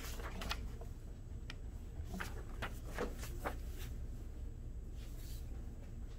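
A paper score sheet being handled close to the microphone: a handful of short rustles and taps, over a steady low room hum.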